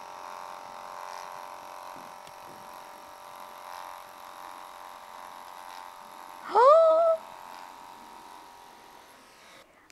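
Liveryman electric horse clippers running with a steady buzzing hum as the blades shave through a pony's thick winter coat. About six and a half seconds in, a person's voice rises briefly over it, the loudest moment. The hum fades near the end.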